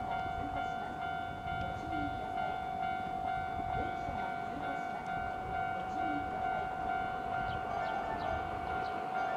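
Japanese level-crossing alarm ringing with a steady repeating tone, over the low rumble of an approaching Keihan 6000 series electric train on the rails.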